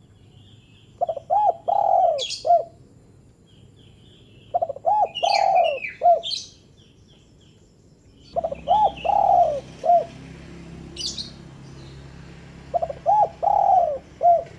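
Spotted dove (terkukur/derkuku) cooing its short call four times, about every four seconds. Each phrase is two quick notes, a longer drawn coo and a short final note. Small birds chirp faintly between phrases, and a low hum comes in about halfway.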